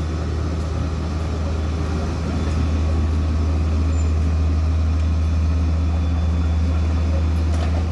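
An engine running steadily with a constant low drone.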